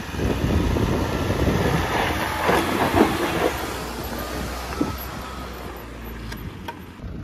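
Off-road 4x4 crawling slowly over rough ground, its engine a low rumble under crunching, scraping tyre and suspension noise. A faint squeal comes in about four seconds in.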